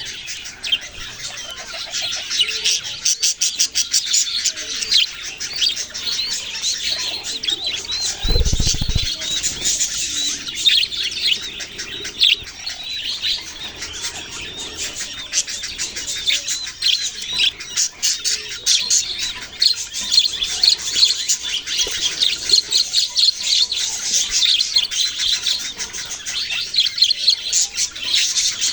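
Many small pet parrots chirping and chattering at once: a dense, continuous stream of quick high chirps. There is a brief low thump about eight seconds in.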